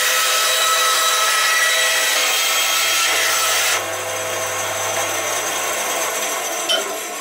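Band saw crosscutting a wooden board: the blade's steady cutting noise over the running machine. It drops in level a little before halfway as the blade clears the wood, then the saw keeps running, with a brief click near the end.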